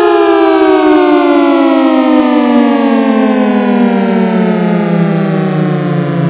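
A Taligent 10/12-port siren winding down at the end of its noon blast. Its two-tone chord falls steadily in pitch.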